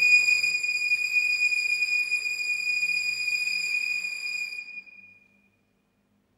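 Ambient background music: a single high sustained electronic tone, held steady, that fades out about five seconds in.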